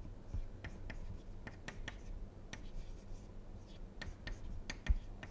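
Chalk writing on a green chalkboard: a run of short, irregular taps and scratches as letters are written.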